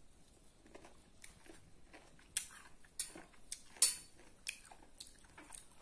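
Chewing crunchy pieces of raw green mango, with irregular crisp crunches that come a few times a second and grow louder in the second half.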